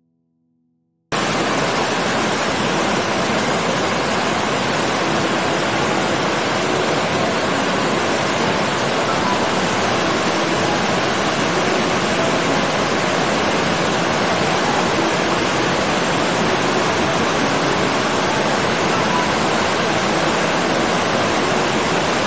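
Steady rush of water, an even hiss at one constant level that starts abruptly about a second in.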